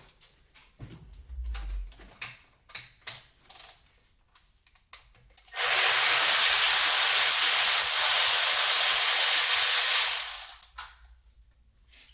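Scattered light clicks and knocks of hand tools on metal engine parts, then a loud steady hiss lasting about five seconds that cuts off.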